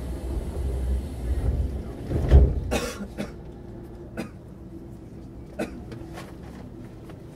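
Inside a stopped Keio 9000 series electric train car: a low rumble, then the doors shutting with a thud and a short hiss about two and a half seconds in, followed by a few scattered clicks over a steady low hum.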